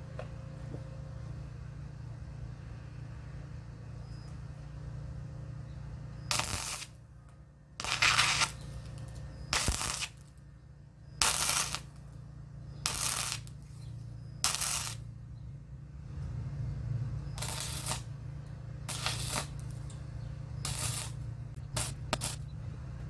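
Electric arc welding on greenhouse frame pipe: about ten short crackling bursts of arc, each about half a second, as the 45-degree ridge joint is tacked. A steady low hum runs underneath.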